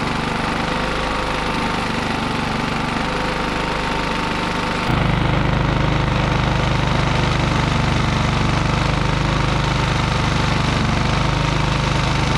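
Westinghouse iGen4500DF inverter generator's single-cylinder engine running steadily while it is nursed along on starting fluid, with bad gas in the fuel line. About five seconds in, the running note abruptly gets louder and deeper and stays there.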